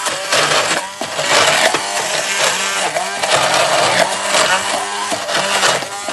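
Hand-held stick (immersion) blender running in a tall plastic beaker, chopping almonds, garlic, cherry tomatoes, basil and olive oil into pesto; the motor's pitch rises and falls as the blades meet the load.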